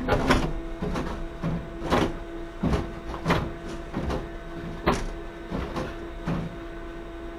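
Steady electrical hum in a stopped tram's cab, with about ten irregular sharp clicks and knocks over a few seconds.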